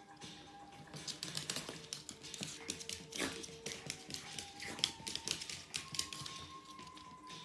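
Maltese puppy's claws clicking and scrabbling rapidly and irregularly on a hardwood floor as it spins chasing its tail, starting about a second in and easing off near the end. Faint background music plays under it.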